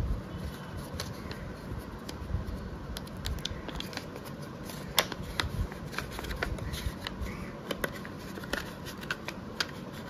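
Small kraft-paper packets and envelopes handled and unfolded by hand: irregular paper rustles and crinkles, over a steady low hum.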